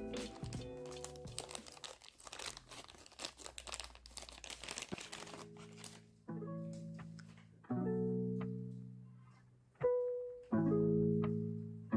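Packaging crinkling and rustling as it is handled, over background music. From about halfway, only the music is left: separate plucked notes, each ringing out and fading.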